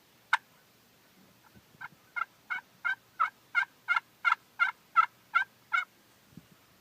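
Turkey yelping: one short sharp note, then a run of about a dozen evenly spaced yelps, roughly three a second, that grow louder and then fade.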